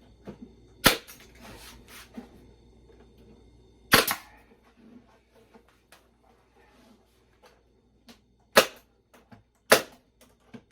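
Staple gun firing staples through plywood frame-rest cleats into a nuc box, in sharp single shots. There are four loud shots about 1, 4, 8.5 and 9.5 seconds in, and a fainter one near 2 seconds.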